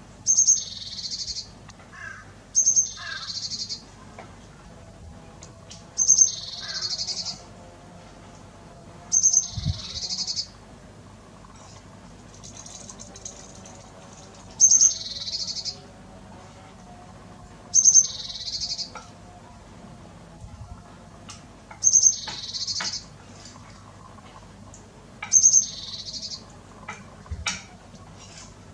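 A songbird repeating the same short high call about every three to four seconds, eight times: a sharp opening note running straight into about a second of buzzy, rapid chatter.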